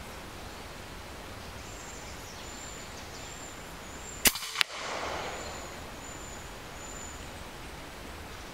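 A single shot from an EDgun Leshiy 2 PCP air rifle, a sharp crack about halfway through, followed a third of a second later by a second sharp crack and a brief echo. A faint high chirp repeats in the background.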